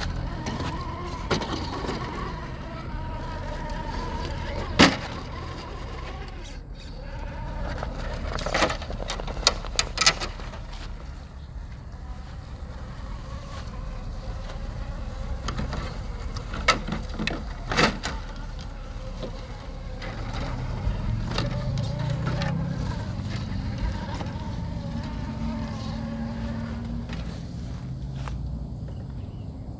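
Small brushless RC motor and drivetrain of an Axial Unimog 6x6 crawler whining, the pitch rising and falling with throttle, with a few sharp knocks scattered through.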